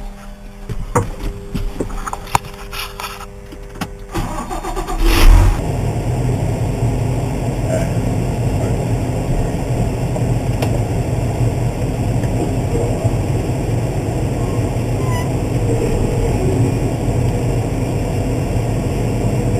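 Case IH Magnum 305 tractor's diesel engine running steadily under way. The first few seconds are quieter, with scattered clicks and knocks. A loud thump comes about five seconds in, after which the engine noise is much louder and stays steady.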